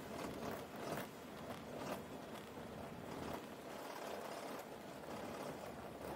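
T-10M light aircraft rolling over a grass airfield, heard from inside the cabin. A steady rumble is broken by irregular knocks and rattles as the wheels run over uneven ground.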